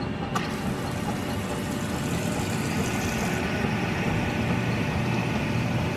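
Self-serve soda fountain pouring carbonated soda into a paper cup: a click as the button is pressed about half a second in, then a steady hissing pour.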